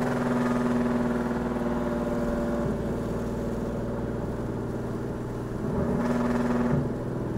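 Straight-piped Nissan 370Z's 3.7-litre V6 exhaust running at a steady engine speed, heard from inside the cabin with the windows down. The note wavers slightly near the end.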